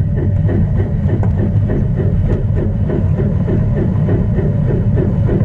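LGB garden-railway train running through snow, heard from on board: steady low motor and gear rumble with a regular pulse about four to five times a second.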